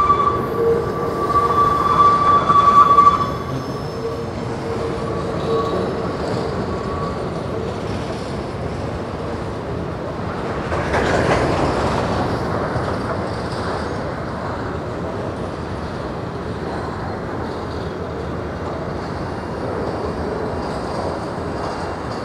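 Empty covered grain hopper cars of a freight train rolling past on steel rails, a steady rumble and clatter of wheels. For the first few seconds a wheel squeals with a high ringing tone, which then fades. About eleven seconds in, the noise briefly swells louder.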